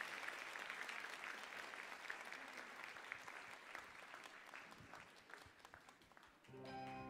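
Audience applauding, the clapping thinning and fading away over about six seconds. Music starts softly near the end.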